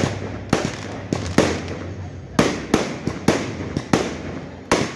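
Fireworks display: aerial shells bursting in a quick, irregular string of sharp bangs, about a dozen in five seconds, each with a short echoing tail.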